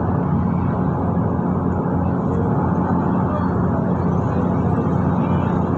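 Steady drone of a Transjakarta bus's engine and road noise, heard from inside the moving bus.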